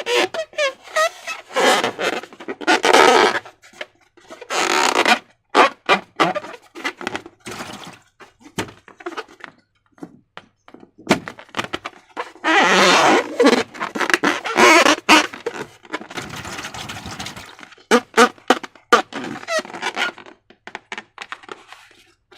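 Slime and rubber balloons being handled and squished: irregular wet squelches, rubbery rubbing and clicks, with a few longer squelching stretches.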